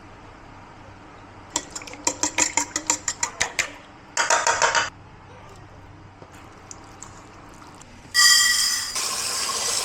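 Kitchen work: a quick run of clinks and clicks of dishes or utensils, a short burst of noise, then water running loudly into a vessel from about eight seconds in.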